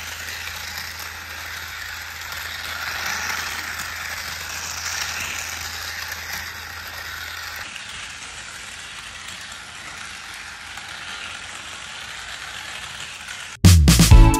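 Small battery-powered toy car running along a flexible plastic race track, with a steady rattle from its motor and wheels. Loud music starts suddenly near the end.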